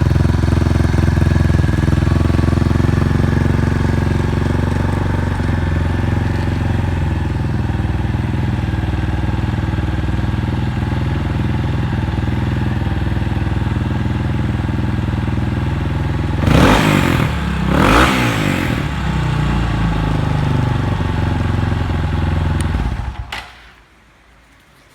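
Yamaha Tricker's 250 cc air-cooled single-cylinder engine idling steadily through a Dirt Freak Delta full exhaust, with two short throttle blips about two-thirds of the way through. The engine is switched off near the end and stops suddenly. The seller reports it running with no abnormal noises.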